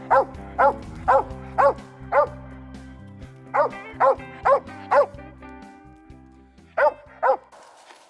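A hunting dog barking in runs of short, evenly paced barks, about two a second, with pauses between runs. Background music plays underneath and stops shortly before the end.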